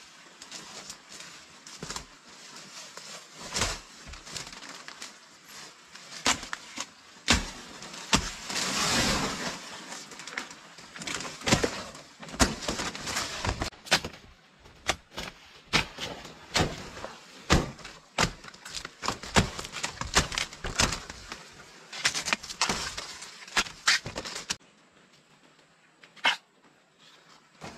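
Irregular sharp clicks and knocks of objects being handled, many in quick succession, with a short rustling swell about nine seconds in. The knocking stops abruptly near the end, leaving only a few faint clicks.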